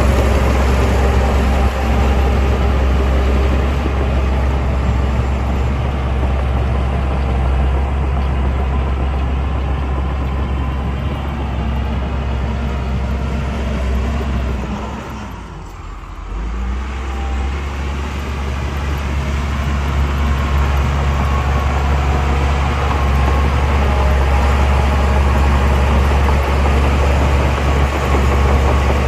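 Heavy diesel engine of earthmoving machinery running loud and steady under load. About halfway through it slows to a lower, quieter note, then picks back up.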